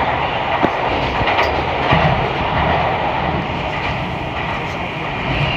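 Metro train running at speed through a tunnel, heard from inside the car: a steady rumble and rail roar with a few sharp wheel clicks over the track.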